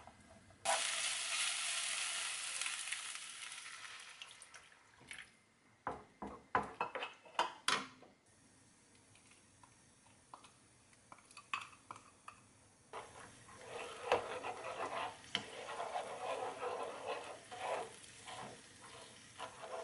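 Water hits a hot frying pan of chopped onion and green onion about a second in and sizzles loudly, dying down over the next few seconds. Scattered clicks of utensils follow, and later a wooden spatula stirs and scrapes a thin red sauce around the nonstick pan.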